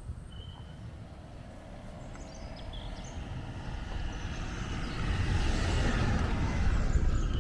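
A vehicle approaching, its engine and tyre noise growing steadily louder over several seconds, over a low rumble.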